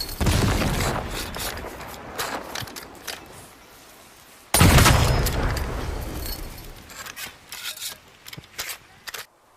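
Tanegashima matchlock gun firing twice, about four and a half seconds apart. Each shot is a sudden heavy bang that rumbles away over several seconds. Small metallic clicks and scrapes follow near the end.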